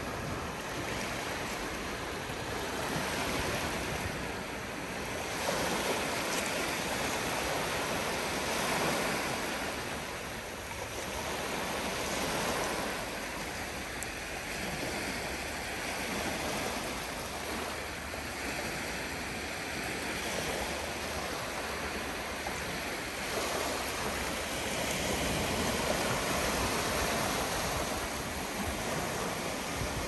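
Calm Black Sea surf: small waves breaking and washing up the shore in a steady rush that swells and ebbs every few seconds.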